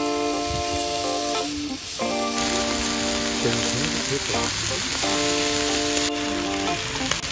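Raw pork belly strips sizzling as they are laid onto a hot cast-iron griddle, a steady frying hiss that grows louder about two seconds in as more strips go down. Background music of held chords plays over it.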